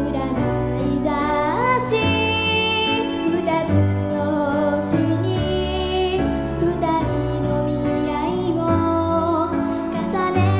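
A young girl sings a melody into a microphone over a musical accompaniment of held chords and a bass line that moves every second or two.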